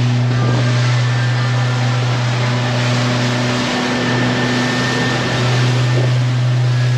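Boat motor running steadily under way, a constant low drone with the rush of wind and water over it; the drone dips briefly about four seconds in.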